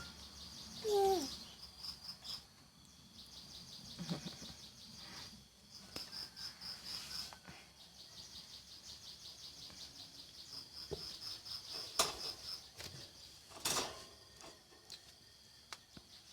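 Faint, rapid high-pitched chirping in the background, going on with short gaps, with one brief falling mew from a four-day-old kitten about a second in and a couple of sharp clicks later on.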